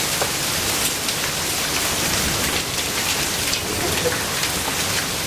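Heavy rain and hail coming down: a dense, steady hiss with many sharp ticks and cracks of hailstones striking.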